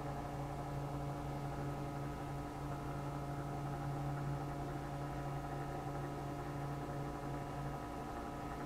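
Steady low electrical hum with fainter, higher steady tones over it, unchanging throughout.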